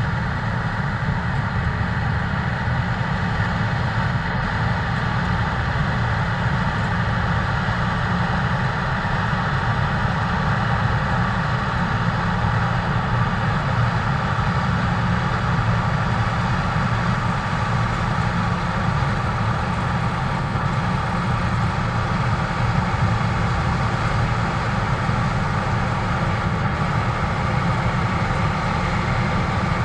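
New Holland CX8.90 combine harvester running steadily while harvesting barley, a constant machine drone with a thin steady whine on top and no changes.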